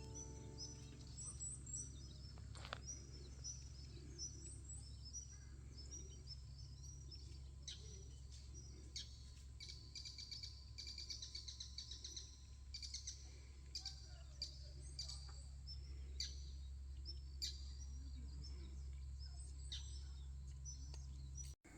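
Small birds chirping and twittering in many short, high calls, busiest about halfway through, over a steady low rumble.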